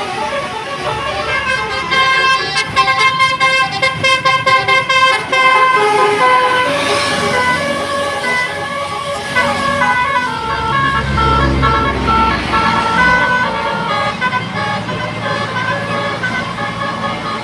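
Tour bus 'telolet' multi-tone horns playing tunes: a rapid pulsing run of notes for a few seconds, then slower stepped melodies. A bus engine's low rumble swells briefly about two-thirds of the way in.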